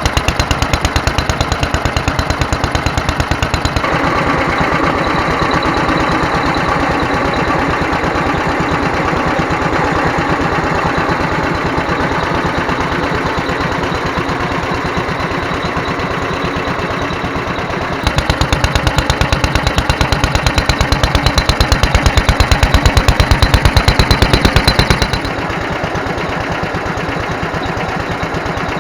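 Petter AS stationary engine running steadily on its Solex 26 FV carburettor, with an even, rapid beat of firing strokes. The level jumps a few times, loudest for a stretch in the last third.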